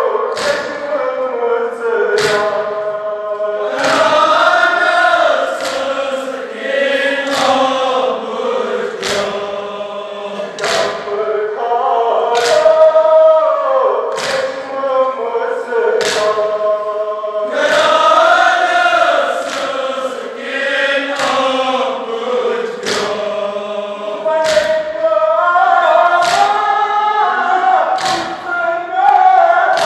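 A Kashmiri nawha chanted in unison by a crowd of men, with the whole group's chest-beating (matam) landing together as one sharp thump about every second and a half, keeping the beat of the chant.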